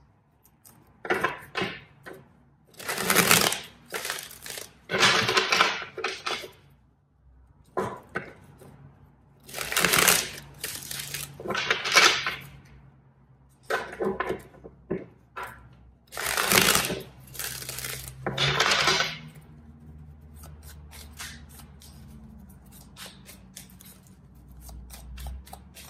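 A deck of tarot cards being shuffled by hand in a run of short, noisy bursts. It stops after about nineteen seconds, leaving a faint low hum.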